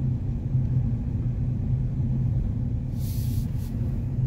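Steady low rumble of a slow-moving car's engine and tyres heard from inside the cabin, with a brief hiss about three seconds in.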